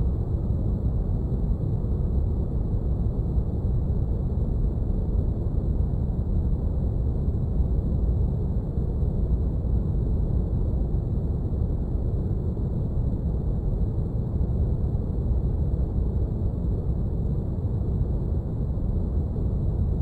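Steady low rumbling noise, like brown noise, forming a spaceship-cockpit ambience; it does not change at all. Faint steady high tones sit above it.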